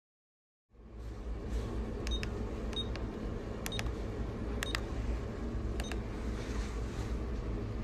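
Keypad of a Verifone VX 680 card payment terminal beeping as a PIN is keyed in: about five short key beeps roughly a second apart, starting a couple of seconds in, over a steady low hum.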